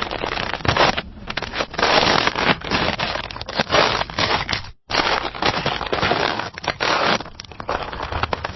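Footsteps crunching in snow, one step about every second at a steady walking pace. The sound cuts out for an instant about halfway through.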